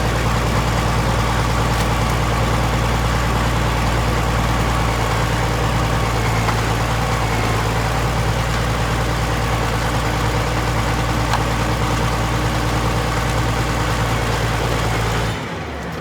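Caterpillar D6 bulldozer's diesel engine running steadily with a deep, even drone while pushing trees. Near the end the sound drops abruptly in level.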